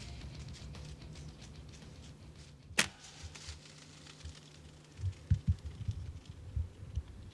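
A bow shot: one sharp crack of the bowstring releasing an arrow, about three seconds in. Low thumps and knocks of handling follow near the end.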